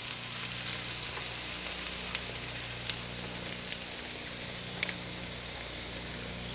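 Beaten eggs sizzling steadily in a skillet of potatoes, peppers and scallions over medium-low heat, the frittata just starting to cook. A few faint clicks come about two, three and five seconds in.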